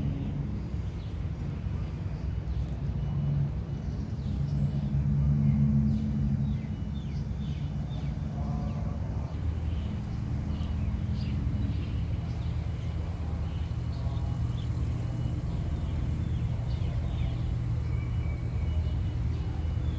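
Heavy diesel engine idling steadily, a low rumble with a hum that swells slightly now and then, from the standing container freight train's locomotive.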